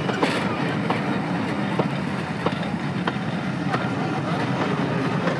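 Train carriage running along the track: a steady rumble with irregular clicks and knocks from the wheels going over the rails.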